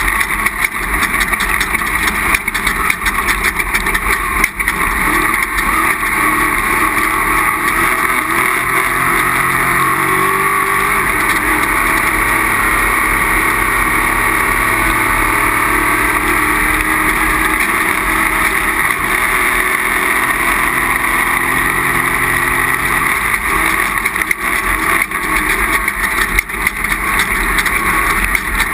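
Off-road race vehicle's engine running hard at speed, its pitch rising and falling with the throttle, over a steady rush of wind and road noise. Knocks and rattles come through, mostly in the first and last few seconds.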